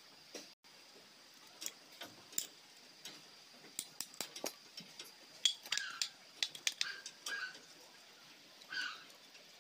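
Steel crown-gear bolts and locking tabs clinking against each other and the metal differential case as they are picked up and fitted: irregular short metallic clicks, some ringing briefly, thickest in the middle of the stretch.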